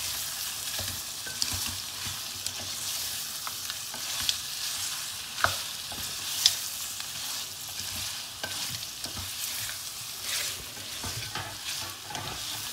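Mutton on the bone frying in oil and spices in a metal pot, sizzling steadily as it is stirred with a wooden spoon. The spoon scrapes and clicks against the pot now and then.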